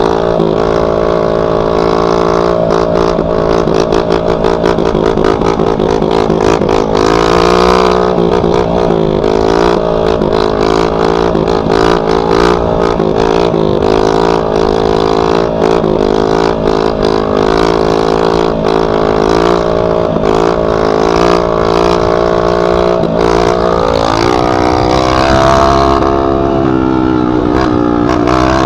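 Dirt bike with its muffler removed (straight pipe) running loud while being ridden. The engine pitch holds mostly steady, then dips and climbs again with the throttle about eight seconds in and again near twenty-four seconds.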